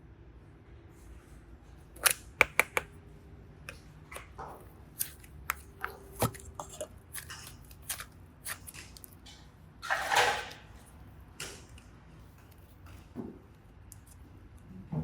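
Scattered small clicks and taps from hands handling clay and slime toys, with a brief rustling swish about ten seconds in and a soft thump near the end.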